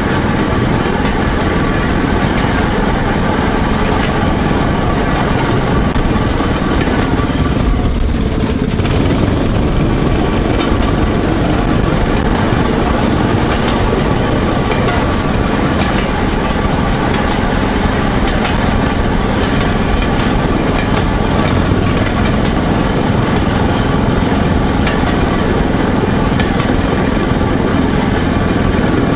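Motor draisine running steadily along narrow-gauge rails, its engine noise even throughout with scattered short knocks.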